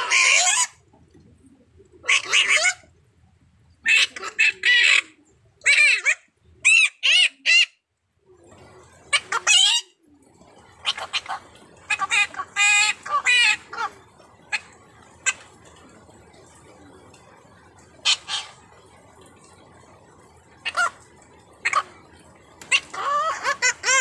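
Caged parrots, a blue-naped parrot and a racket-tailed parrot, calling in a duet: repeated bursts of loud, harsh squawks and screeches, some broken into short rising-and-falling whistled notes, with pauses of a second or two between bursts. Past the middle the calls thin out to a few short, sharp single notes before a last burst near the end.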